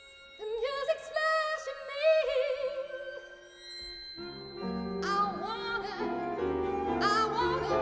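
A soprano singing with wide vibrato, at first almost alone, over a contemporary chamber ensemble. About four seconds in, the ensemble with piano comes in and the music grows louder, the voice still singing above it.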